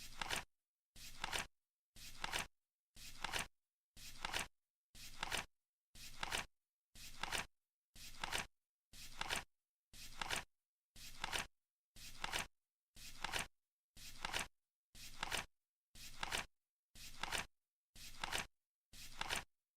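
Flip clock flaps turning over once a second, each flip a short swish that ends in a sharp clack, steady as the timer counts.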